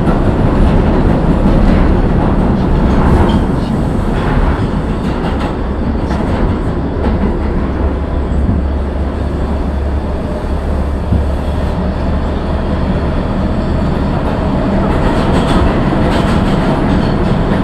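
New York City subway train running along the track: a steady, loud rumble with wheel clatter on the rails.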